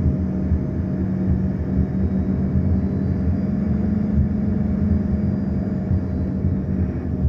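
Airliner engines droning steadily in flight, a constant low rumble with a steady hum over it.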